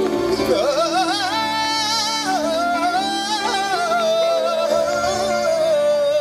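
Live Hindi devotional bhajan: a singer draws out one long, ornamented note with vibrato, bending up and down in pitch, over steady instrumental accompaniment.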